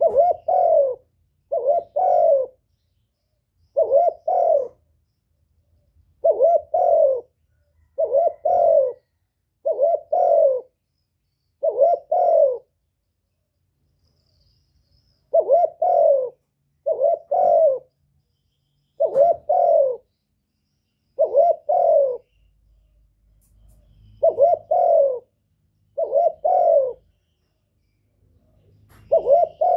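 Spotted dove (cu gáy) cooing: a steady run of low, paired coo notes, repeated about every two seconds, with one longer pause a little before halfway.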